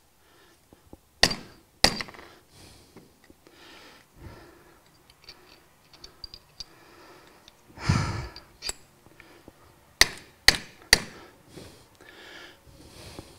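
Hammer blows on a punch set in a Dixie Chopper mower spindle housing, knocking out the old oil seal and bearing: two sharp metal strikes about a second in and three in quick succession around ten seconds in, with light clinks between and a longer breathy noise near eight seconds.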